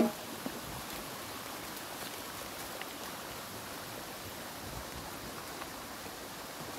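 A steady, even rushing hiss of flowing water, with a few faint brief ticks.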